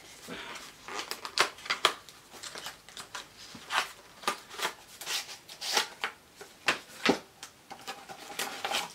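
Hands handling a small cardboard product box and pulling out its contents: irregular rustling, scraping and light knocks of cardboard and packaging.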